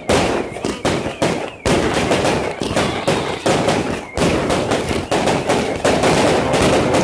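Consumer fireworks battery (cake) firing in quick succession: a rapid, uneven string of launch shots and bangs, about two to three a second.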